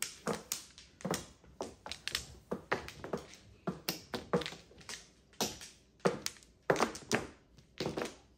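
Mahjong tiles clacking on the table as they are drawn and discarded: irregular sharp clicks, two or three a second, a few of them louder.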